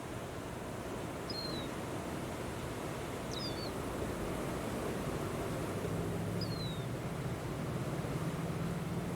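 Steady wind noise, heaviest in the low rumble, with a short high falling bird call three times. A faint low drone joins about halfway through.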